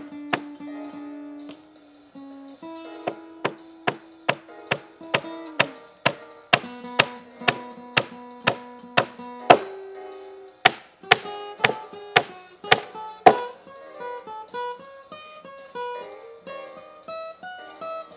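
Acoustic guitar music, with a run of sharp, evenly spaced knocks, about two a second, from about three seconds in until about thirteen seconds in.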